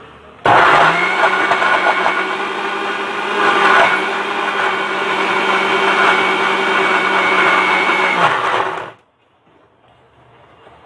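Electric mixer grinder running at a steady speed, grinding beetroot with water in its juicer jar. It is switched on about half a second in, swells briefly around four seconds, and stops after about eight seconds.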